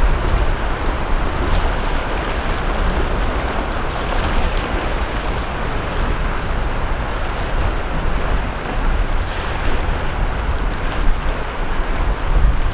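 Sea waves breaking and washing continuously onto a beach, with a low rumble of wind on the microphone.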